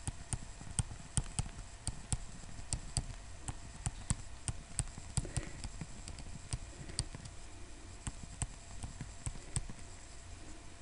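Quiet, irregular tapping and clicking of a pen or stylus writing words by hand, about two or three clicks a second.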